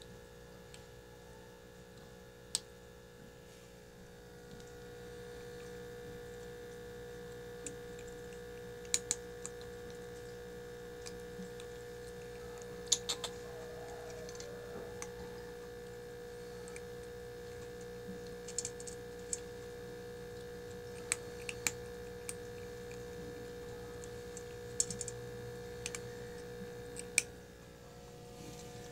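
A two-month-old Puspin x Persian kitten eating from a steel plate: scattered sharp clicks at irregular intervals from its teeth and the food against the metal, over a steady background hum.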